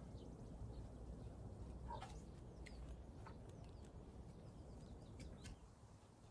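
Faint low wind rumble with a few short, faint bird chirps and clicks scattered through it.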